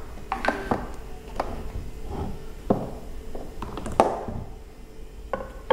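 Handling noise: a series of light knocks and clicks as a hand-held electric car polisher and its power cord are picked up and moved about on a tabletop, the loudest knock about four seconds in.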